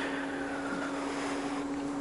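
Top-load washing machine running its diagnostic spin test: a steady motor hum with the whoosh of the spinning tub.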